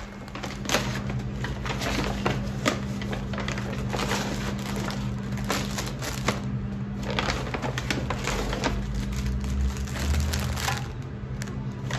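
Crinkling and crackling of food packaging being handled and opened, in many irregular short crackles, over a steady low hum.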